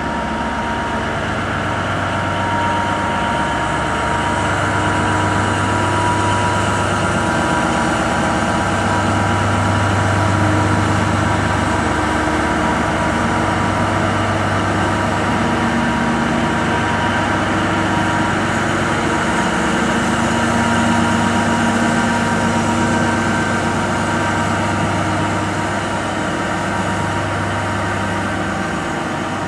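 Two Vossloh G 1206 diesel-hydraulic locomotives running slowly past at close range, their diesel engines giving a steady heavy drone with a high whine over it. The sound swells a little as each locomotive goes by.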